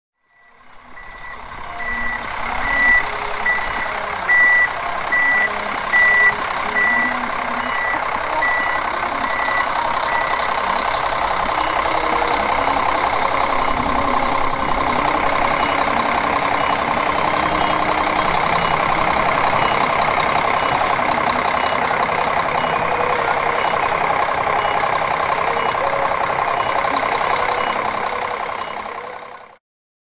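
Snow-plowing tractor working: its engine runs steadily while a reversing alarm beeps about once every 0.8 s, loud for the first ten seconds or so, then fainter for the rest. The sound fades in at the start and out at the end.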